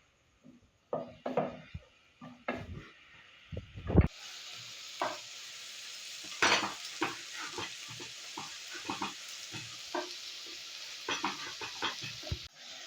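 Spoon knocks and taps against a bowl or pan, then about four seconds in a steady sizzle of food frying in hot oil, with the clicks of a spoon stirring it; it cuts off suddenly near the end.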